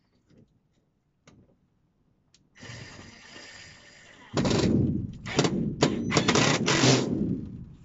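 Cordless impact driver driving a screw through the vent opener's bracket into a wooden batten. The motor spins up about two and a half seconds in, then loud rapid hammering starts as the screw tightens, stopping and restarting a few times before it ends.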